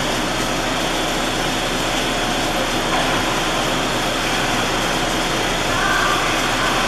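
Steady din of an indoor ice rink: a constant hum and hiss with indistinct voices, and a few short high children's calls near the end.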